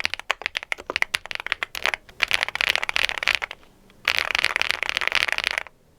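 Typing on an aluminium-cased TKL mechanical keyboard with factory-lubed linear switches. The keystrokes are separate at first, then come in two fast flurries with a short pause between them. The switches sound a bit scratchy and some stabilizers rattle.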